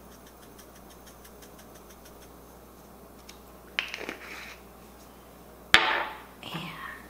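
Small glass spice jars handled over a granite countertop. Faint ticking of dried herbs shaken from a jar comes first, then a click just before four seconds in and a sharp knock near six seconds in as a jar is set down and another picked up, each followed by a brief rustle.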